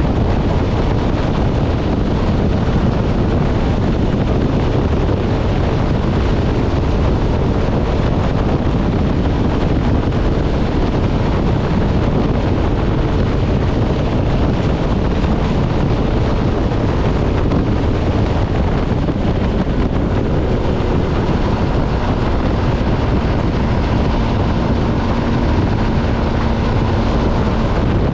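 Heavy wind noise on the microphone during a steady motorcycle ride, with the MV Agusta Stradale 800's three-cylinder engine running underneath; a new steady engine note comes in near the end.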